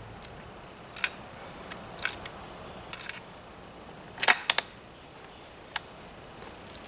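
Bolt-action Ruger rifle being handled and loaded: a series of sharp metallic clicks and clacks, the loudest about three seconds in and again just after four seconds.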